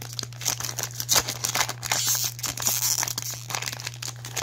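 Foil trading-card pack wrapper being torn open and crinkled by hand: a dense run of crackles and tearing.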